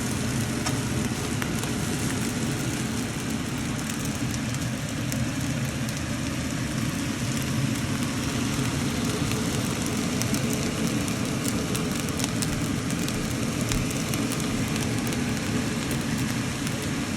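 Vegetable and quinoa stir fry sizzling steadily in a hot pan, with a dense fine crackle.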